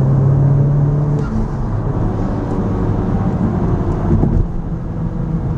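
2018 Honda Civic Type R's turbocharged 2.0-litre four-cylinder accelerating hard through a Mishimoto cold air intake, heard from inside the cabin. A steady engine tone holds for about the first second, then the note changes as the pull goes on, with the turbo sound the driver loves.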